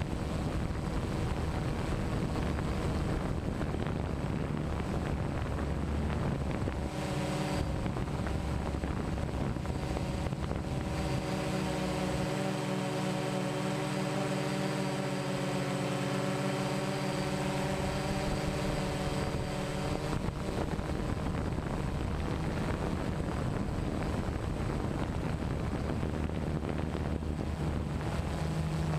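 DJI Phantom 1 quadcopter's motors and propellers humming steadily in flight, picked up by the camera it carries, with wind buffeting the microphone. The hum's pitch holds steady, its overtones standing out more clearly for a stretch in the middle.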